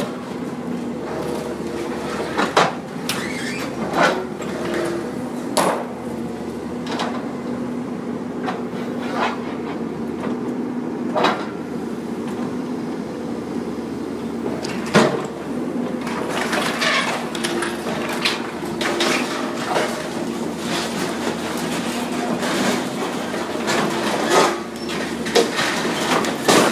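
Komatsu hydraulic excavator's engine running steadily while its bucket tears into a steel-framed building. Irregular metal clanks and crashes of beams and sheet-metal debris come every second or two, the loudest about fifteen seconds in.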